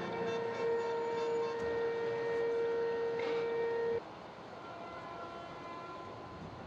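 A vehicle horn sounds in one long, steady, held blast that cuts off abruptly about four seconds in. After that comes quieter street noise with a fainter steady tone.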